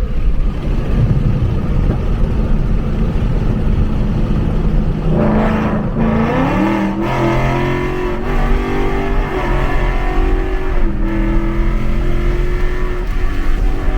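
Ford Mustang GT's 5.0 Coyote V8 breathing through long-tube headers and an X-pipe: it runs steadily for about five seconds, then climbs in pitch under hard acceleration and holds at higher revs, with a few short breaks along the way.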